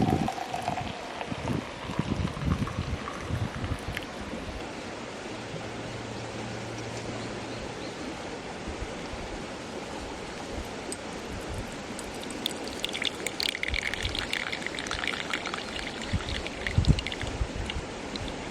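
River water flowing steadily, a constant rushing noise, with occasional low wind thumps on the microphone.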